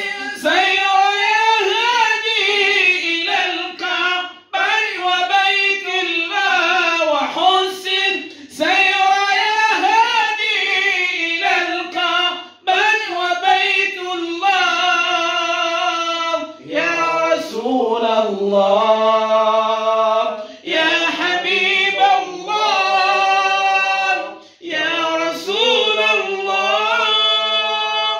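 Unaccompanied Arabic devotional hymn in praise of the Prophet Muhammad, sung by men's voices and a boy's voice. It comes in long, drawn-out, ornamented phrases of about four seconds each, with short breaths between them.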